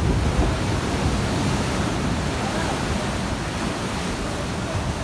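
Sea waves splashing and rushing on the shore: a steady wash of surf with a heavy low rumble underneath.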